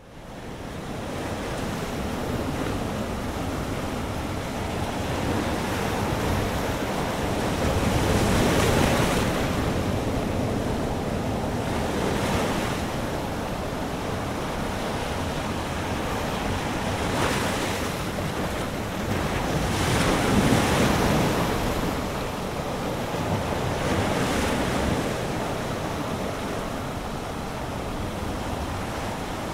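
Ocean surf washing onto a beach, with wind buffeting the microphone. The wash swells louder and eases off every few seconds.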